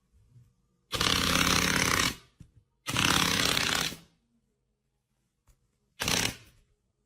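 Short bursts of loud, harsh noise from a power tool run in spurts: two lasting about a second each, then a shorter one near the end, with dead silence between them.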